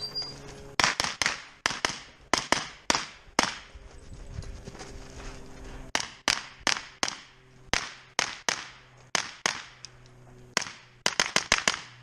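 Shot-timer start beep, then a semi-automatic rifle firing rapid strings of shots, several a second, with brief pauses between groups.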